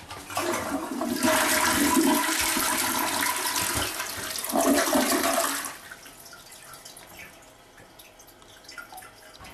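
Toilet flushing: a loud rush of water for about five seconds, then it drops to a quieter, steady hiss of water running as the tank refills.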